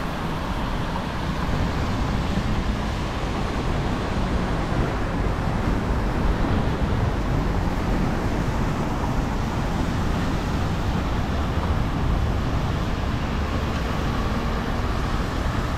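Steady road-traffic noise: an even low rumble and hiss with no single sound standing out.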